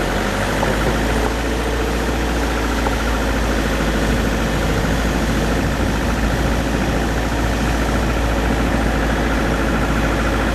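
A vehicle engine running steadily, with a deep rumble of road and wind noise, heard from inside the moving vehicle.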